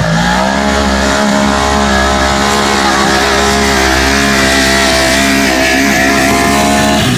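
Polaris RZR 900 side-by-side's twin-cylinder engine held at high, steady revs under full throttle while its wheels spin and dig into the dirt of a steep climb, taken for too much throttle. The engine note drops away suddenly near the end as the throttle is released.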